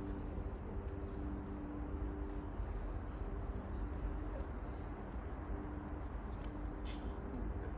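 Outdoor background noise: a steady low rumble with a humming drone that comes and goes, and a faint, thin high whine in short stretches.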